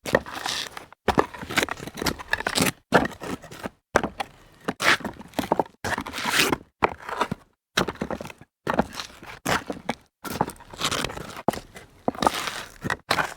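Sneaker steps on loose rock debris: a series of separate gritty crunches and scrapes as the sole presses and grinds the stones, each lasting under a second, with short silent gaps between them.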